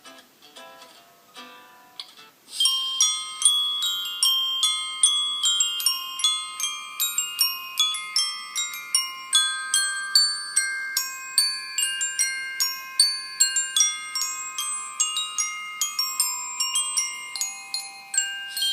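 Samsung Galaxy J1 Ace ringtone: a fast melody of short, ringing high-pitched mallet-like notes, several a second, starting about two and a half seconds in. A few quieter, lower notes come before it.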